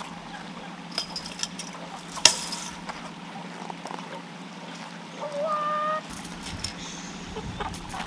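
A chicken gives one drawn-out call, a little under a second long, about five seconds in. A sharp knock about two seconds in and a few lighter clicks are heard over a low steady hum.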